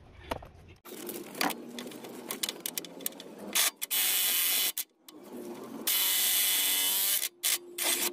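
Cordless electric wrench running in two bursts of about a second each, undoing the steering rack's mounting bolts, with clicks and knocks of the tool and socket on metal between the bursts.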